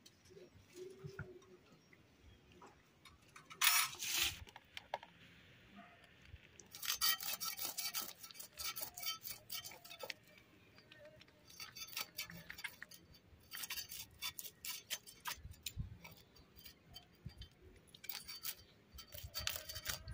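Fish being scaled by scraping it against a bonti's upright iron blade: a loud short rasp a few seconds in, then runs of quick scraping strokes with pauses between.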